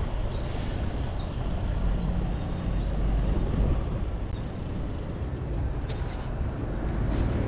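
Car passing close beside a cyclist in light city traffic, over a steady low rumble of road and wind noise on a bike-mounted action camera. A few faint clicks come near the end.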